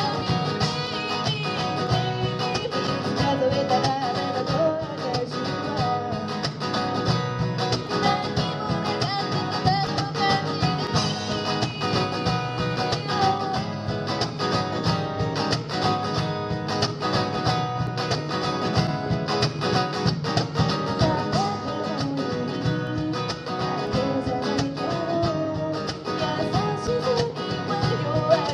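Live acoustic music: an acoustic guitar played along with a steady beat on a wooden cajon, and a voice singing over it.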